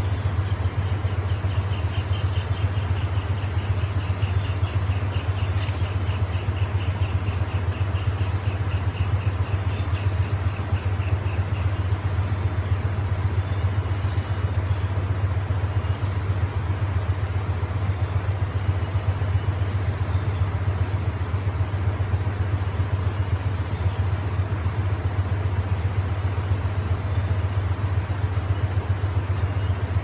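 Forest ambience: a steady low rumble under an even hiss of wind-blown foliage, with a high, rapidly pulsed trill for roughly the first ten seconds and faint steady high whines.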